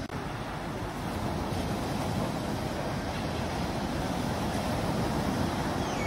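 Steady rush of sea surf with wind buffeting the microphone.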